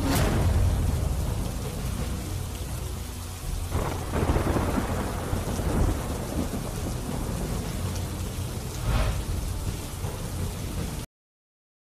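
Heavy monsoon rain pouring steadily, with a deep rumble that swells several times. The sound cuts off suddenly near the end.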